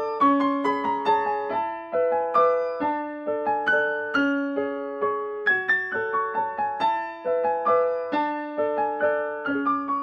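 Background music: a piano melody of single struck notes that follow one another at a steady, unhurried pace.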